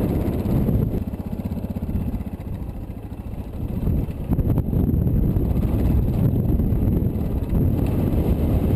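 Dual-sport motorcycle's single-cylinder engine running while riding off-road, easing off for a couple of seconds in the middle, then pulling harder again.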